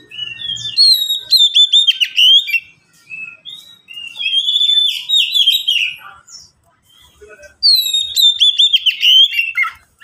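Oriental magpie-robins (kacer) singing: three loud phrases of about two seconds each, made of clear whistled notes with quick falling slurs, with a short pause between phrases.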